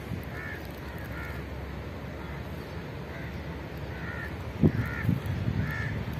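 Crows cawing, short calls repeated about once a second, with a couple of low thumps about two-thirds of the way in.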